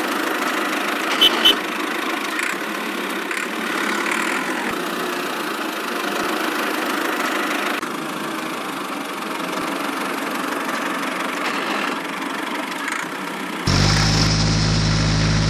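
A small engine running steadily, with two sharp clicks about a second in. Near the end a louder, deeper drone with a steady pitch sets in.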